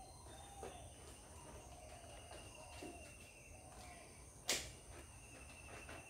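Quiet garden ambience: a steady high insect drone and faint distant bird calls, with one sharp click about four and a half seconds in.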